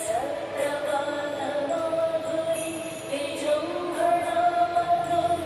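Music for the dance: a song with a singing voice holding long, wavering notes, and a high jingle that comes back every second or so.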